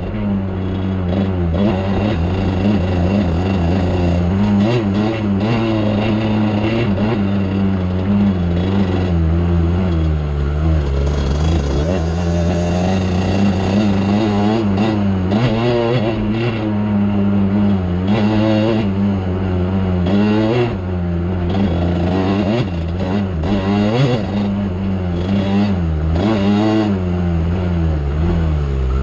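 Off-road vehicle's engine running under way, its pitch rising and falling over and over as the throttle is opened and eased off.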